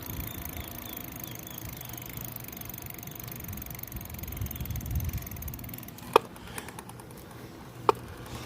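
An e-bike being ridden: a steady low rumble with a faint high whine, then two sharp clacks, about six and eight seconds in. The title puts the noise down to a plastic part on the bike.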